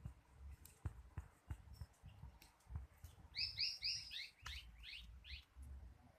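A bird calling a rapid series of about eight chirps starting about three seconds in and lasting about two seconds, over scattered faint clicks and a low rumble.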